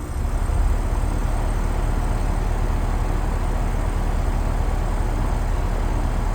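A 2014 Rheem Value Series heat pump outdoor unit running steadily just after start-up. The compressor gives a low, even hum, and the condenser fan adds a steady rush of air.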